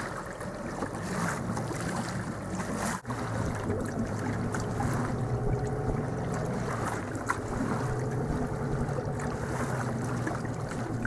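Small boat's motor running steadily, with wind on the microphone and water around the hull; the sound briefly drops out about three seconds in.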